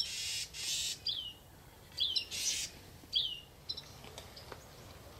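A bird calling in the woods at dawn: a short downward-slurred chirp repeated about once a second, five times. A few brief rushes of hiss-like noise come at the start and again about two and a half seconds in.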